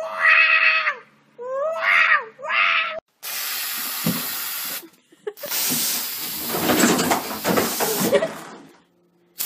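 Black cat yowling three times, drawn-out meows that sound like "wow" and bend in pitch. Then a steady hiss for about a second and a half, followed by a longer rough, noisy rush that fades out.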